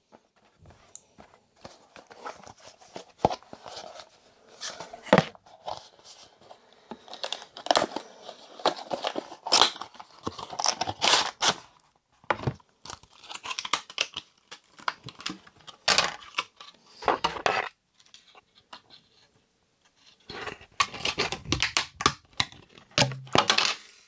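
Small cardboard boxes and a clear plastic tray of M.2 SSD packaging being opened and handled: irregular crinkling and tearing rustles with small clicks, and a short lull about three-quarters through.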